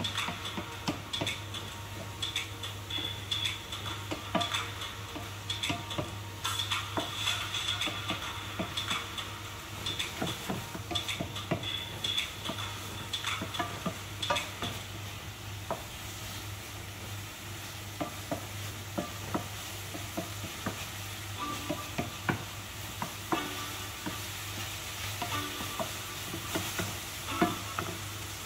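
Mushrooms and chicken sizzling in a stainless-steel frying pan as a wooden spoon stirs them, with frequent scrapes and taps of the spoon against the pan, over a low steady hum.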